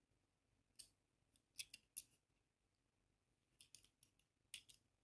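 Faint, sharp small metal clicks, some in quick clusters, from a caliper being worked on the moissanite tennis bracelet to measure its width.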